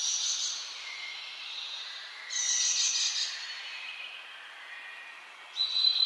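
Birds singing in a chorus: steady high whistled notes go on throughout, with louder, rapid trilling calls at the start, for about a second from just over two seconds in, and again near the end.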